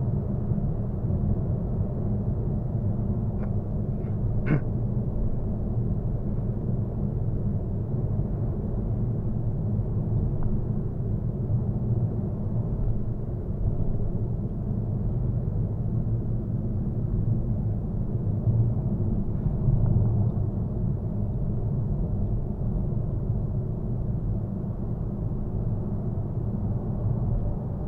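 Steady in-cabin rumble of a Citroën Berlingo BlueHDi 130 diesel van cruising at motorway speed, with engine, tyre and road noise blended together. A single brief click comes about four and a half seconds in.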